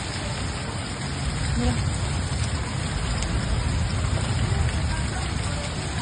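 Heavy rain falling steadily during a thunderstorm downpour, an even hiss of rain with a low rumble underneath.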